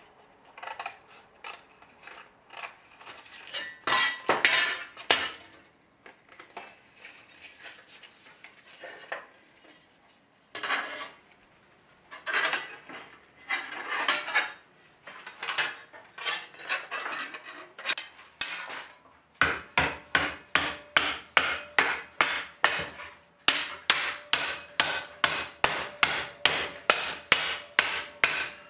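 Scissors snipping through a paper pattern, then hand shears cutting sheet steel. From about two-thirds in, a hammer strikes a 4130 steel armour plate on a horn stake in a steady run of sharp, ringing blows, about three a second, as the plate is shaped.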